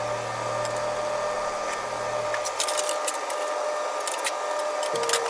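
Breaded asparagus spears deep-frying in a pan of oil, with a steady sizzle. From about two and a half seconds in come sharp crackles and pops as another panko-coated spear is lowered into the hot oil.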